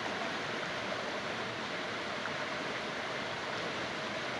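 Steady rush of flowing water, like a stream or river running over rocks.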